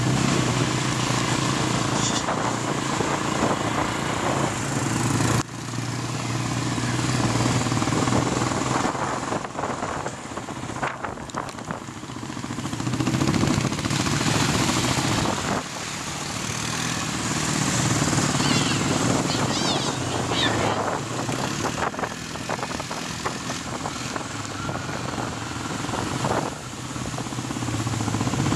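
Quad bike engines running under way on a dirt track, a steady engine drone. The sound cuts and shifts abruptly twice, at about a fifth of the way in and just past halfway.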